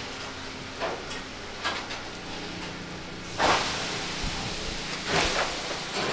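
Steady low hiss from a wood fire under a steaming cooking pot, with a few faint crackles. Two short, louder handling noises come about three and a half and five seconds in.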